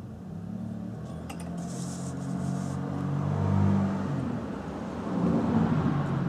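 A low engine hum that swells twice. A few light metal clinks sound about a second and a half in, from hands handling the lantern's burner parts.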